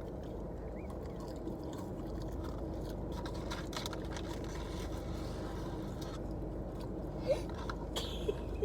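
Steady low hum inside a car, with faint chewing and small mouth clicks now and then, and a couple of slightly louder clicks near the end.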